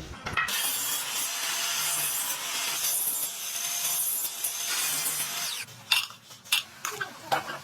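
A tool cutting or rasping bamboo: a steady, rough scraping noise for about five seconds. It then gives way to a series of sharp knocks and clicks.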